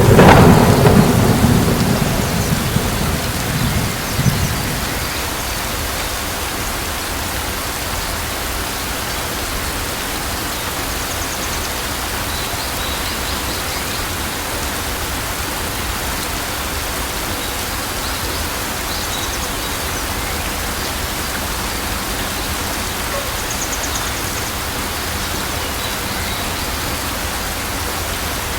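Steady rain falling, an even hiss. It opens with a loud low rumble that fades away over the first four or five seconds.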